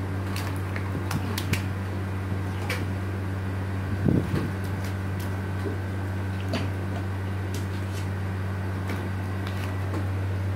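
A steady low machine hum with a thin high whine runs under scattered small clicks and soft knocks as spiced meat is handled and laid into a cloth- and banana-leaf-lined cooking pot. A louder soft thump comes about four seconds in.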